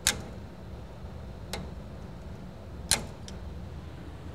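Wire cutters snipping thin sensor wires: a sharp snip right at the start and another about three seconds in, with a lighter click between, over a low steady hum.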